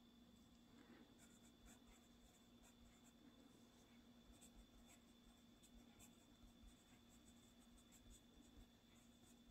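Pencil scratching faintly on sketchbook paper in many short strokes as words are handwritten, over a steady faint electrical hum.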